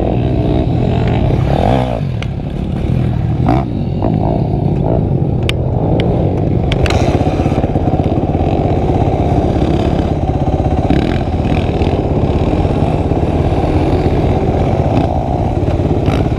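Motorcycle engine running steadily as the bike is ridden, with a few sharp knocks heard over it.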